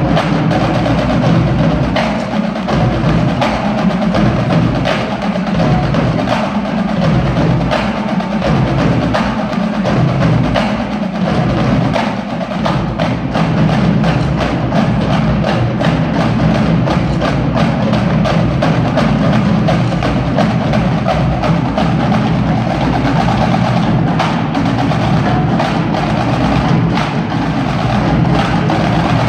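Marching drumline of snare drums, tenor drums and bass drums playing a loud, dense percussion cadence of rapid sharp strikes over deep bass drum hits.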